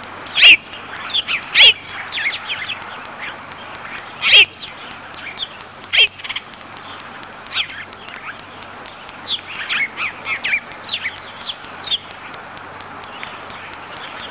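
A string of short, high chirping animal calls at irregular intervals, several sliding down in pitch; the loudest come in the first few seconds.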